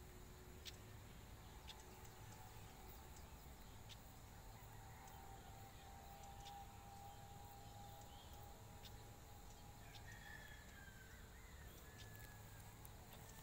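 Near silence: faint background hiss with a few faint clicks and faint drawn-out tones in the middle and near the end.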